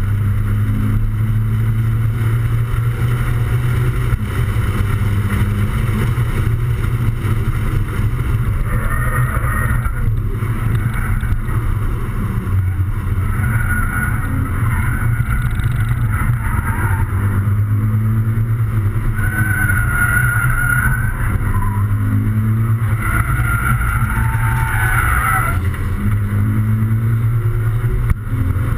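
Toyota 86 / Scion FR-S's flat-four engine running under load on track, heard from inside the cabin, with a steady low drone and wind rushing in. A higher wavering tone rises and fades several times.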